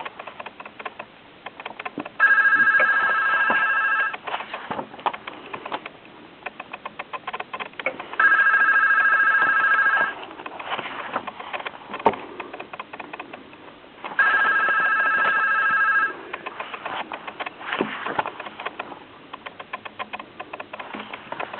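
Telephone ringing three times, each ring a steady electronic tone lasting about two seconds, with about four seconds of pause between rings. Small clicks and rustles of handling fill the gaps.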